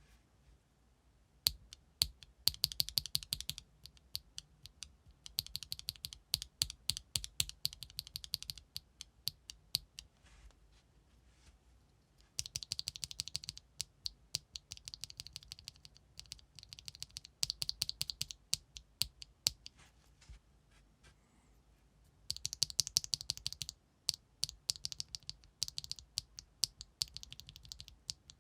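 Typing on a GEON F1-8X mechanical keyboard with an aluminium plate, O-ring mount, no foam and ABS double-shot keycaps, fitted with RAW switches. The keystrokes come in quick runs of a few seconds, with short pauses between them.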